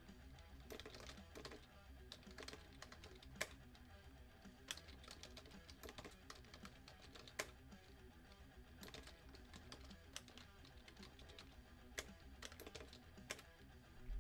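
Faint typing on a computer keyboard: irregular keystrokes and clicks, a few of them sharper than the rest, over quiet background music.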